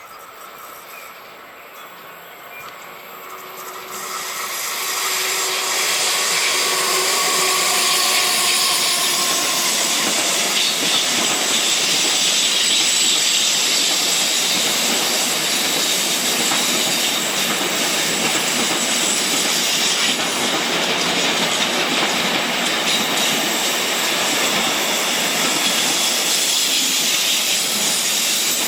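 A train passing close on the track: it approaches over the first few seconds, then a loud, steady rush of wheels on rails carries on without a break.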